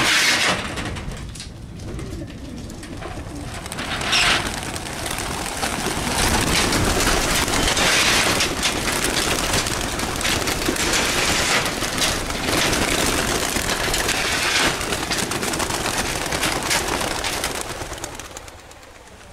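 A flock of racing pigeons bursting out of transport crates in a van, many wings clattering and flapping as they take off. The flapping builds a few seconds in, stays dense for most of the time, and fades away near the end.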